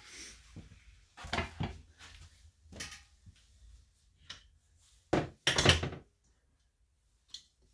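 Metal engine parts knocking and clattering as they are handled and rummaged through in a plastic tote bin: a scatter of separate clunks, the loudest clatter a little after five seconds in.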